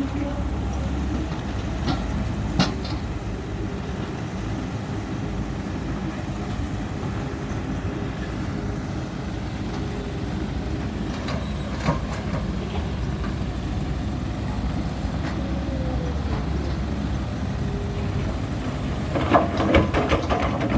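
Heavy diesel truck engine running steadily with a low rumble, with a few sharp knocks and clanks over it.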